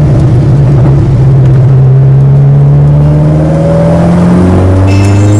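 Ginetta sports car's engine heard from inside the cabin, its pitch climbing as the car accelerates, then dropping sharply about four and a half seconds in at an upshift and starting to climb again.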